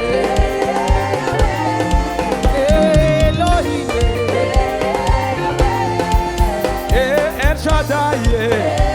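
Live gospel worship band playing an upbeat song: a melody line over drums and bass with a steady beat.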